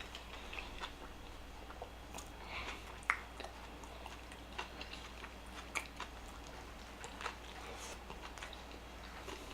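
Close-miked chewing of fast food, with soft mouth clicks and smacks scattered through.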